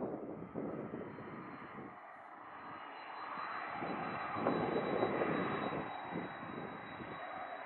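Jet engines of a Boeing 767-300ER airliner on approach to land: a rushing engine noise that swells to its loudest about halfway through, then eases off.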